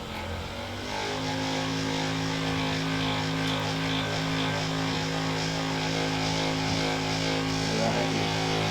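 A small electric motor starts about a second in and then runs with a steady hum.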